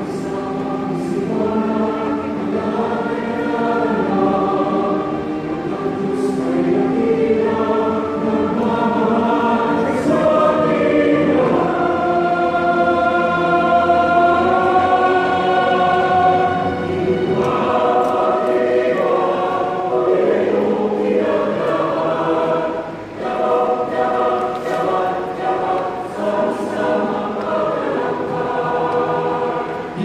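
Choir of many voices singing a praise song together, with long held notes.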